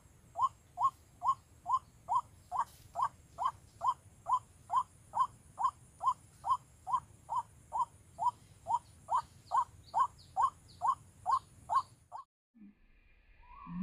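White-breasted waterhen (ruak-ruak) calling: one short, rising note repeated steadily a little over twice a second, cutting off near the end.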